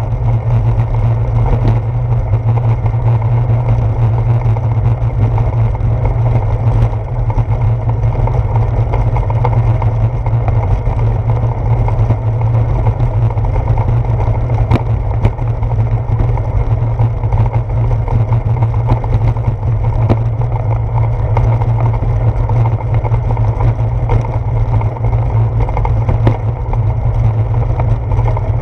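Steady low rumble of bicycle tyres rolling over a brick-paved street, the vibration carried through the handlebar mount into the camera.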